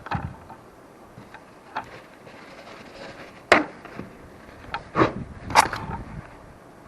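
A few scattered knocks and clicks, the sharpest about three and a half and five and a half seconds in, with quieter ones between.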